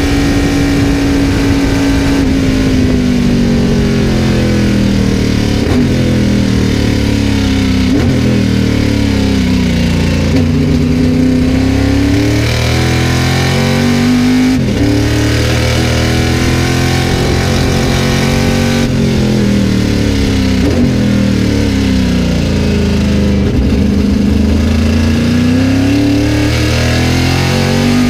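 Greenwood Corvette race car's V8 engine heard from inside the cockpit at racing speed. The revs sink steadily early on, then climb and drop again and again, with a short sharp break at several of the drops, as the car works through the gears around the lap.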